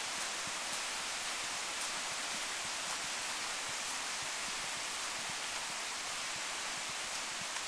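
A steady, even rain-like hiss with a few faint ticks.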